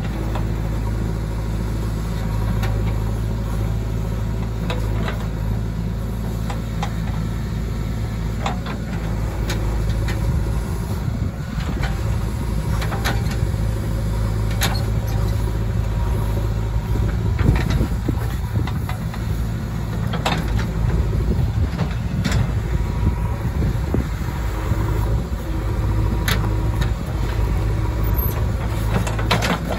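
JCB 3DX backhoe loader's diesel engine running steadily under hydraulic load as the backhoe arm digs. It grows louder and rougher partway through, with occasional sharp knocks from the bucket and arm.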